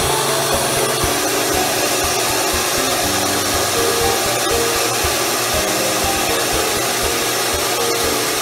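Shaper Origin handheld CNC router running and cutting wood: a steady motor whir with air rushing, overlaid by short steady tones that shift in pitch as it works.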